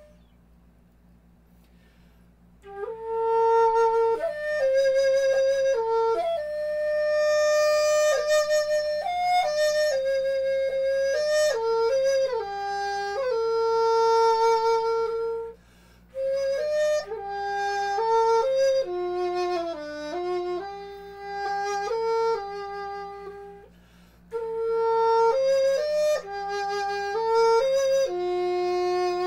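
A flute-like wind instrument playing a slow solo melody, one note at a time with slides between some notes, in three phrases separated by short pauses. It enters about two and a half seconds in, over a steady low hum.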